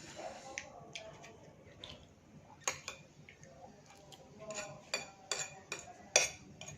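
Cutlery clinking and scraping against a plate while eating, as a series of sharp, irregular clicks, most of them bunched in the second half.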